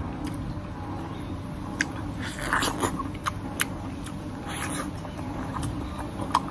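Wet sucking and lip-smacking of a person eating ripe mango flesh straight off the skin, with short slurps about two and a half seconds in and again near five seconds, and a few sharp clicks, over a low steady hum.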